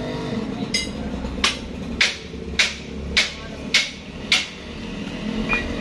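Hammer striking metal seven times at an even pace, about a blow every half second or so, each hit ringing briefly, then a single lighter tap near the end.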